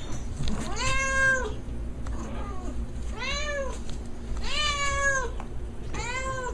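A domestic cat meowing four times, each drawn-out call rising and then falling in pitch, spaced one to two seconds apart.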